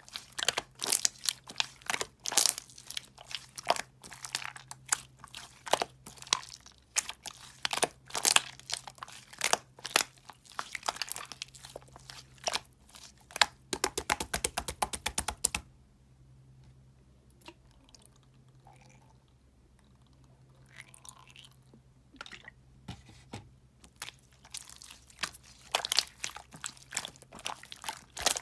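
Soothing gel being handled, giving dense crunching and crackling. About halfway through comes a fast, even run of clicks; a quieter stretch with only faint sounds follows, and the crunching starts again near the end.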